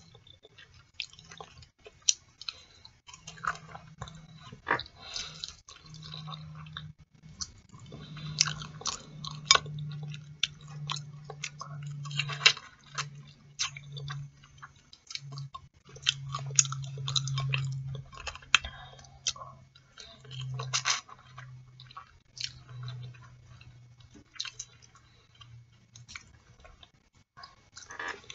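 Close-up eating sounds of boiled artichoke leaves being pulled through the teeth and chewed: many wet mouth clicks, lip smacks and chewing noises. A low hum runs underneath from a few seconds in until near the end.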